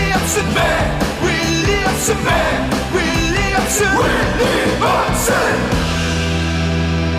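Rock-style Korean baseball player cheer song with sung voices over a band, cymbal hits about every second and a half, ending on a held chord near the end.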